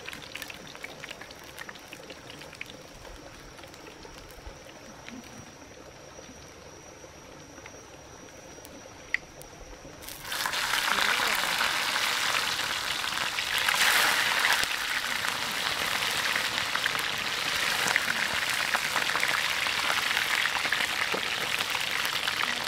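Whole fish frying in hot oil in a wok: a loud, steady sizzle that starts suddenly about ten seconds in. Before it the oil is quiet, with only a faint steady high tone.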